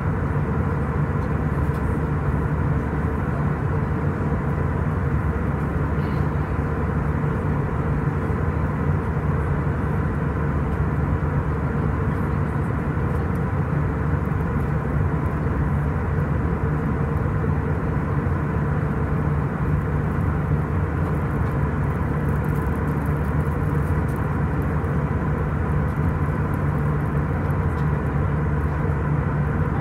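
Steady roar of an Airbus A320's jet engines and rushing air heard inside the cabin from a window seat in flight, with a constant low hum and a faint steady tone.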